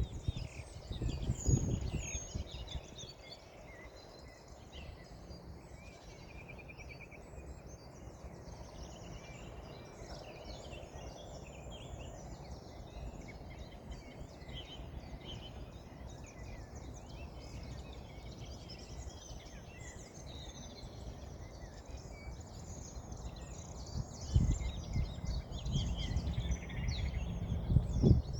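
Many small birds chirping and singing in trees, with a short trill about two seconds in. A low rumble swells up in the first two seconds and again in the last few seconds, louder than the birdsong.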